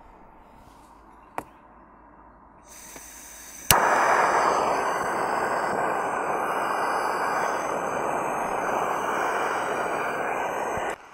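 A FireMaple X3 canister gas stove being lit: a single click, then gas hissing faintly from the opened valve, then a sharp igniter click about four seconds in. The burner catches at once and burns with a loud, steady rush until the sound stops abruptly near the end.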